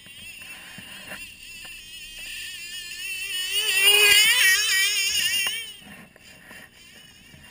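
Radio-controlled Arctic Cat model snowmobile's motor whining, its pitch wavering with the throttle. It grows loud as the sled passes close about four seconds in, then fades away.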